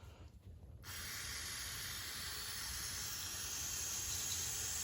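Aerosol brake cleaner spraying in one long, steady hiss that starts about a second in, degreasing oily valve rocker parts.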